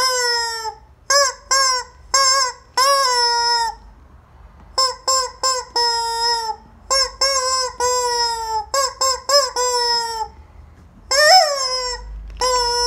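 Squeezed rubber chicken toy letting out honking squawks, a run of short ones mixed with longer drawn-out ones that sag in pitch at the end. There are brief pauses about four seconds in and again around ten seconds.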